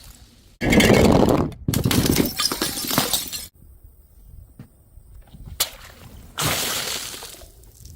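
Glass bottles smashing: a crash about half a second in, another about a second later, and a third near the end, with small ticks of glass between.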